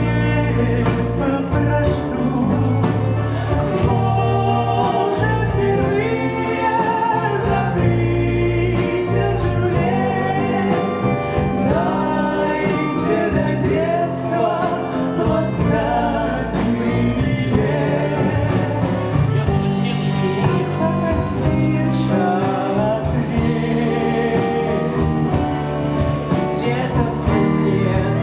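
A small live band playing a song: a woman singing over piano, button accordion (bayan), clarinet, bass and drums.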